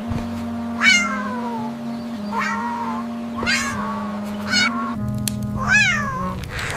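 A cat meowing five times, each meow falling in pitch, over background music with held low notes.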